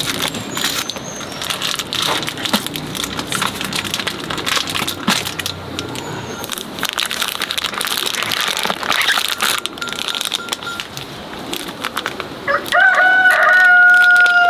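Plastic grow bags crinkling and oyster mushroom clusters cracking as they are pulled off by hand. Near the end a rooster crows once, a long call and the loudest sound.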